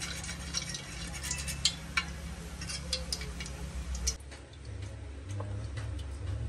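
Hot cooking oil in a steel wok crackling and popping around a single small piece of food, which is a test of whether the oil is hot enough for frying. The crackling stops about four seconds in, leaving a low steady hum.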